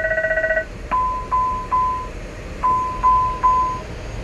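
Embraer E190 cockpit aural warnings during the fire-protection test. A fast-pulsing ringing bell alarm cuts off about half a second in, then two sets of three short chimes follow, each set lasting just over a second.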